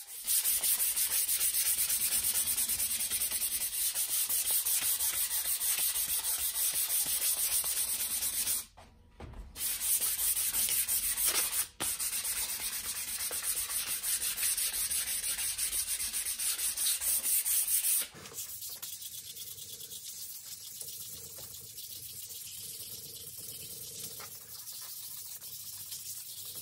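Sandpaper rubbed by hand along the willow blade of a cricket bat in fast back-and-forth strokes, a dense scraping hiss. It pauses briefly about 9 seconds in and turns softer from about 18 seconds on.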